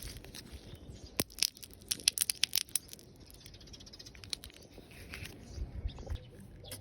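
A quick run of sharp crackling clicks about a second in, lasting about a second and a half, over faint rustling.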